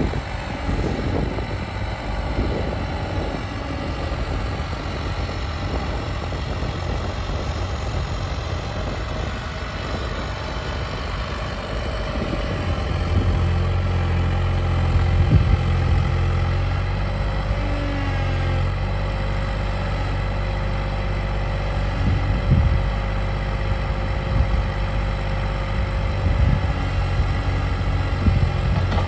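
Cat 303.5 mini excavator's diesel engine running steadily. It gets louder about thirteen seconds in, with a few short knocks along the way.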